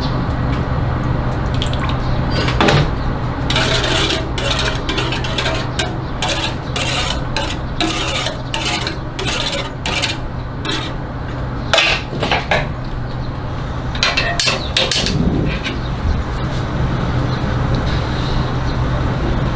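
Metal takoyaki picks clicking and scraping against a takoyaki pan in quick, irregular strikes, densest through the middle, over a steady low hum.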